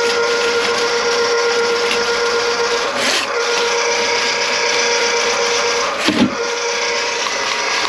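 Motorized drain-cleaning machine running steadily with a whining hum. The hum briefly dips with a knock about every three seconds, loudest near the end.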